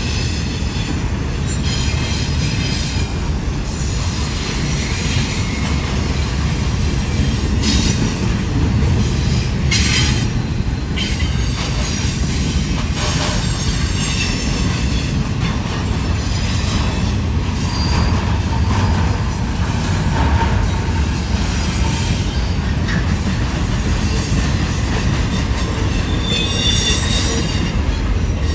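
Double-stack intermodal container well cars of a freight train rolling past: a steady low rumble of steel wheels on the rails, with faint high-pitched wheel squeal at times, clearest near the start and end.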